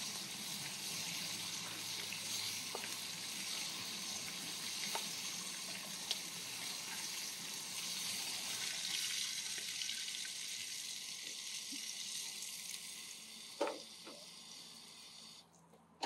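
Razor clams frying in hot oil in a pan, a steady crackling sizzle with a few light clicks, cutting off abruptly near the end.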